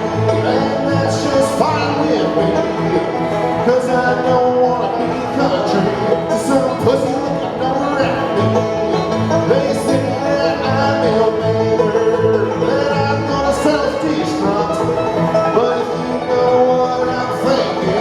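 A bluegrass band playing live: banjo and guitar over a steady bass line, with no break in the music.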